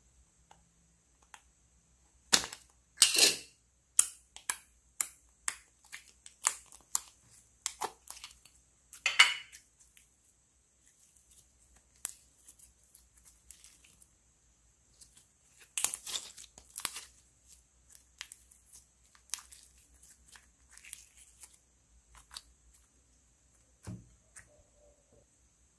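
Pink glitter slime squeezed and stretched by hand, giving a string of sharp clicks, pops and squelches. The loudest come in clusters about three seconds in, about nine seconds in and around sixteen seconds in.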